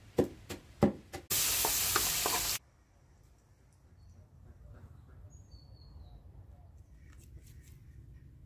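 Three or four sharp knife chops on a wooden cutting board, then a loud burst of sizzling, as of food frying, lasting just over a second and cut off abruptly. After that the sound drops low, with a couple of short high chirps.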